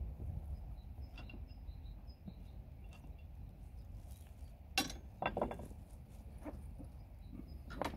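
Black plastic filter-housing lid on a fuel-polishing rig being handled and lifted off, a few sharp clicks and knocks about five seconds in and again near the end, with plastic bag rustle. Faint bird chirps and a low steady rumble behind.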